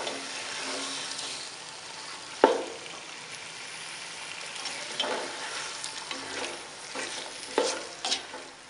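Raw chicken pieces sizzling in hot oil in a pot while a spatula stirs them, browning until the meat changes colour. The spatula knocks against the pot about four times, loudest about two and a half seconds in.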